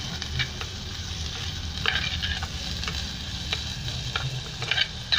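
Sliced onions, garlic and curry leaves frying in hot oil in a pot as a spoon stirs them: a steady sizzle with a few sharp taps and scrapes of the spoon against the pot.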